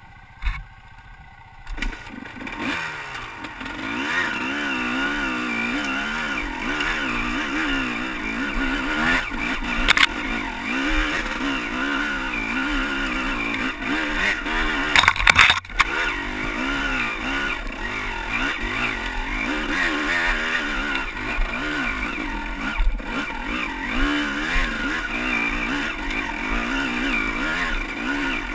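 Honda CR250 two-stroke dirt bike engine working up a steep rocky trail climb, its pitch rising and falling with the throttle, heard from a helmet-mounted camera. The engine is quieter for the first couple of seconds, and a few sharp knocks come about ten and fifteen seconds in.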